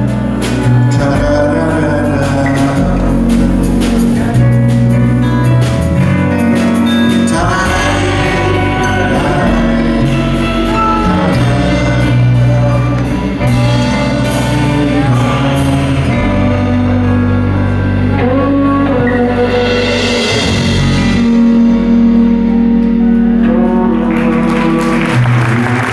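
Live song: a man sings over a strummed steel-string acoustic guitar and a fretless guitar whose notes slide and bend. As the song closes near the end, a noisy hiss of applause starts to rise.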